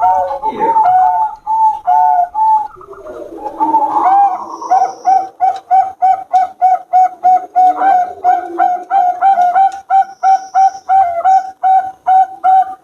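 Zebra doves (perkutut, Bangkok strain) cooing: fast runs of short, clipped notes, about three a second, with a rougher, lower passage about three seconds in.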